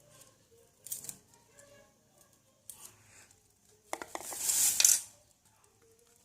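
Food-preparation handling noises in a kitchen: a few short clicks and scrapes, then a louder rustling scrape with clicks about four seconds in.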